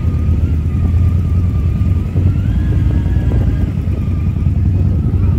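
Motorcycle engine running steadily at low speed, heard close up from the rider's own bike, with a slight rise and fall in revs a few seconds in.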